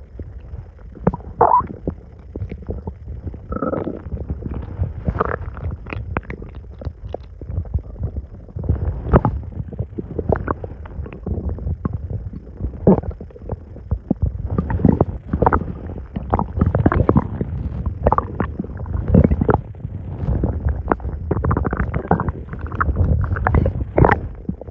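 A person's stomach and intestines gurgling and rumbling after a very large meal: a continuous low rumble broken by frequent short, irregular gurgles, coming thicker in the second half.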